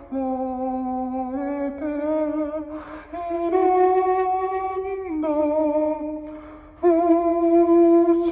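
A man singing unaccompanied into a handheld karaoke microphone, holding long steady notes, with short pauses about three seconds in and again around six seconds in.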